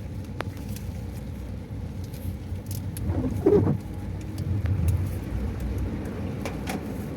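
Bus engine running with a low steady rumble as the bus drives on into flooded road; a short voice-like sound about three and a half seconds in.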